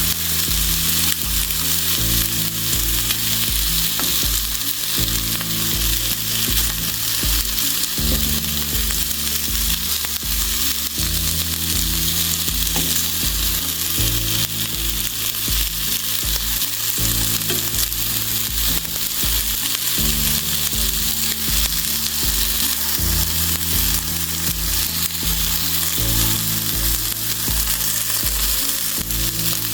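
Food sizzling as it fries in a pan, a steady hiss throughout. Under it runs background music with a regular bass pulse.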